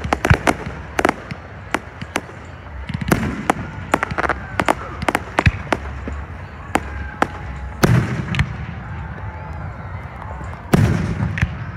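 Fireworks display: aerial shells bursting in a rapid string of sharp bangs that thins out after the first few seconds. One heavier boom comes about eight seconds in and another near the end.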